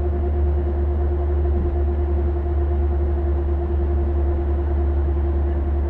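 Volvo bus running steadily, a deep engine drone with a constant whine above it.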